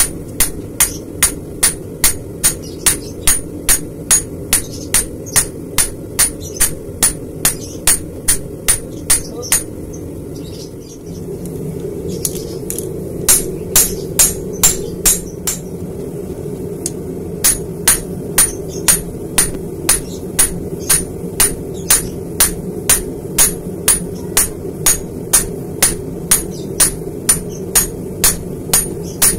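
Hammer blows forging a red-hot bar of Böhler N695 stainless steel on an anvil, evenly paced at about two strikes a second, with each blow ringing. The hammering pauses twice for a few seconds, over a steady low rush from the forge that grows louder partway through.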